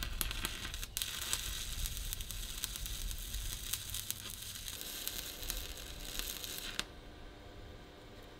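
Stick-welding arc burning steadily with a dense crackle: a 1/8-inch 7018 rod laying a pass on steel plate at about 90 amps DC. It breaks off for a moment about a second in and stops near the end.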